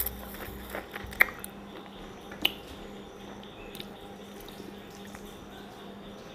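Wet mouth clicks and smacks as a lime wedge is sucked, with a few sharp clicks in the first two and a half seconds and only scattered faint ticks after, over a faint steady hum.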